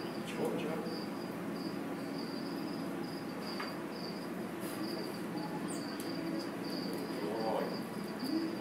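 Insect chirping steadily in short, evenly repeated pulses at one high pitch, over a low steady hum.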